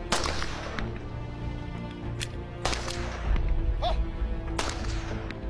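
Sharp cracks from QSZ-92 pistols in quick-fire practice, four at irregular intervals, each with a short echo, over background music.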